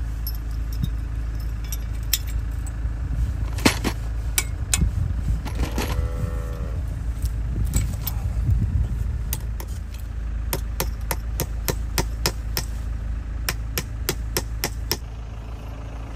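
Barbed fence wire being pulled tight with a lever-type metal wire strainer: sharp metallic clicks and clinks as the tool grips and works along the wire, coming in a quick run in the second half, with a brief squeak near the middle. A steady low wind rumble on the microphone lies under it all.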